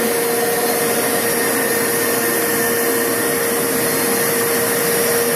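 Upright carpet cleaner running in wash mode with its brushes spinning, pushed slowly forward over carpet: a steady suction motor hum with a constant whine.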